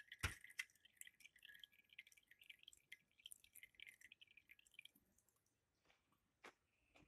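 Faint, rapid, irregular dripping ticks, from drained crushed-pineapple juice, that stop about five seconds in. A single knock just after the start as a plastic cream cheese tub is set down on the crust.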